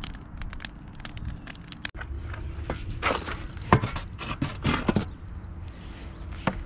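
Wind rumbling on the microphone with light clicks, then, about two seconds in, a shovel scraping and scooping wood ash inside a metal fire-pit ring, several strokes.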